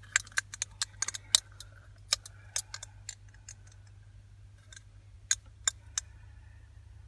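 Sharp, irregular clicks from operating the controls of a Sony DSR-50 DVCAM video deck, fast and close together at first, then three more a little after five seconds in. A steady low hum runs underneath.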